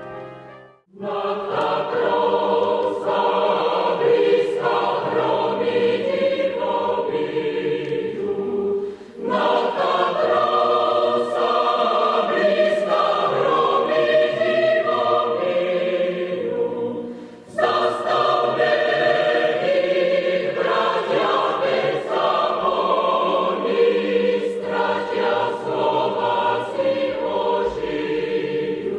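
A choir singing a solemn anthem. The singing starts about a second in and runs in phrases, with short breaks about 9 and 17 seconds in.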